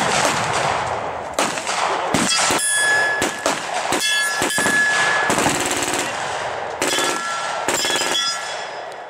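Rapid, overlapping gunfire from several shooters on a firing range, some shots with a ringing clang after them, fading away near the end.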